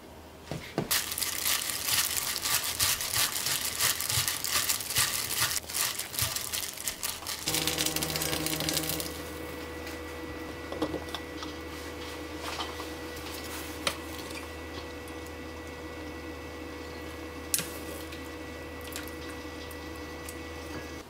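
Kitchen cooking sounds: a dense crackle for about seven seconds, then a steady hum with a faint high tone and a few clicks.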